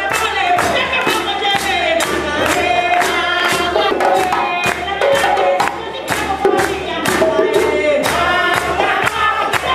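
Live Burkinabe music: djembe drums played in a steady beat under a man singing into a microphone, with several voices singing together.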